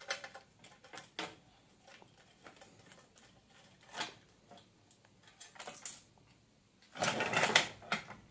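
A small Phillips screw being backed out with a precision screwdriver: scattered light clicks and scrapes of the bit turning in the screw head, then about a second of louder clattering handling noise near the end.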